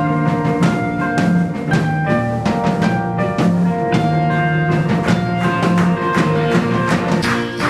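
Instrumental music with a steady drum-kit beat and guitar.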